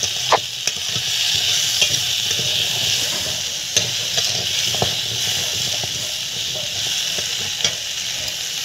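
Carrot pieces sizzling as they fry in a metal kadai, a steady hiss, while a metal spatula stirs them and clicks and scrapes against the pan now and then.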